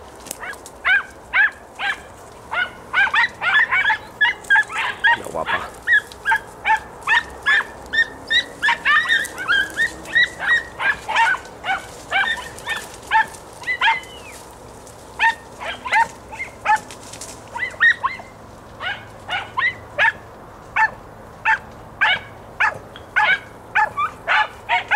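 Podenco Andaluz hounds giving tongue, short high yelps coming two or three a second with a brief lull about halfway through. They are the cry of hounds running a rabbit's scent.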